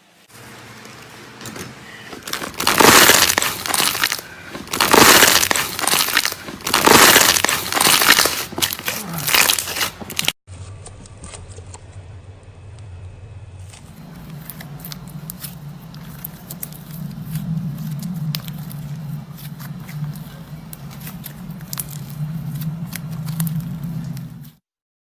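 Slime being squeezed and played with by hand: loud crackling, squishing surges about every second or two, then after a cut a quieter run of small clicks and pops over a steady low hum.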